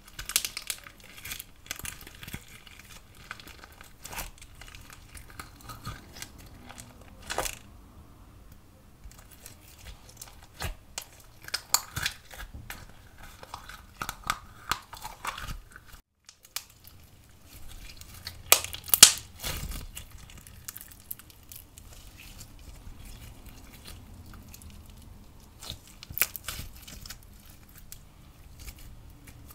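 Sprinkle-and-bead-filled slime being squeezed, dug out of a small plastic tub and stretched by hand: sticky crackling and popping with sharp clicks, loudest a little past halfway.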